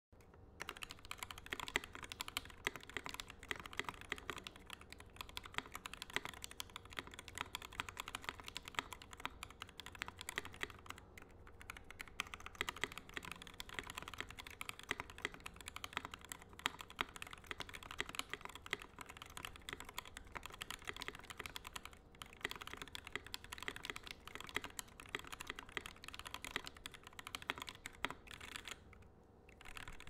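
Fast, continuous typing on a custom mechanical keyboard: a QXP case with a brass plate, Novelkeys Cream linear switches lubed with Tribosys 3204 and fitted with switch films, and GMK doubleshot keycaps. There is a brief pause in the keystrokes near the end.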